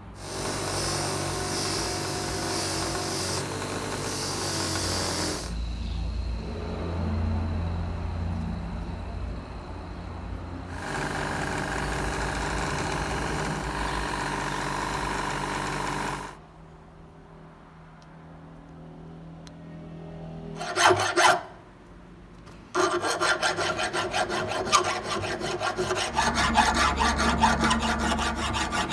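A bench grinder runs in two long stretches, then a flat hand file rasps on a steel part clamped in a vise in quick repeated strokes over the last six seconds.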